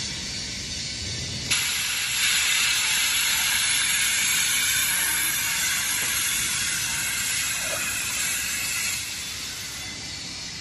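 Loud, steady hiss of pressurized gas escaping at a cylinder filling head. It starts suddenly about a second and a half in and eases off near the end.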